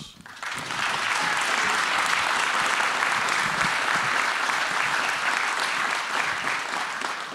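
Audience applauding, building up within the first second, holding steady, then easing off near the end.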